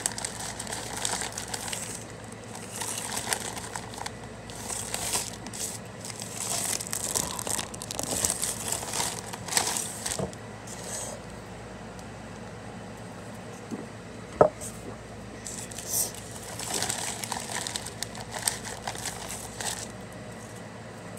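Plastic food packaging crinkling as it is handled, in repeated bursts with a quieter pause in the middle and one sharp click about two-thirds of the way through.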